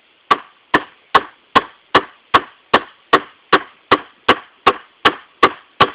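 An empty Glock pistol used as a hammer, pounding a 3.5-inch nail into a 2x4: a steady run of about fifteen sharp knocks, roughly two and a half blows a second.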